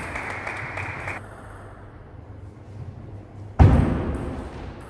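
A single loud, low thump about three and a half seconds in, dying away over about a second with the hall's echo. Before it, a steady hiss stops about a second in.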